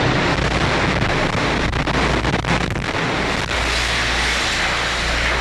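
Loud, steady rushing noise like wind buffeting a microphone, over a low hum, with a few faint crackles about two to three and a half seconds in.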